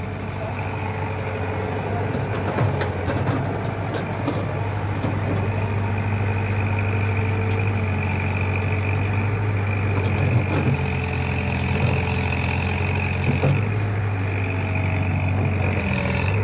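Heavy diesel engine of a tracked excavator idling steadily, with a thin high whine held over the low hum and a few light clicks.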